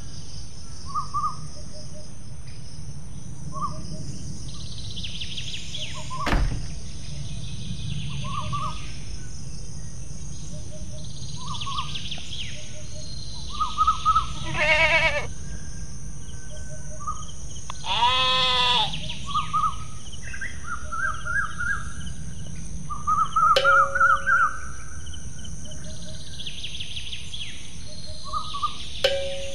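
Birds chirping in short repeated calls over a steady low rumble, with a goat bleating twice: a wavering bleat about halfway through and a longer one a few seconds later. A single sharp knock sounds about six seconds in.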